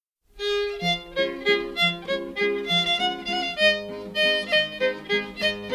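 Background music: a lively fiddle tune of quick notes, beginning a moment in, with a lower held note joining about halfway through.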